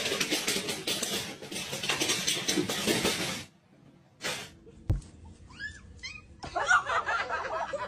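A cat yowling and hissing for about three and a half seconds. After a pause and a thump, a few short cries rise and fall in pitch, and busy noise follows near the end.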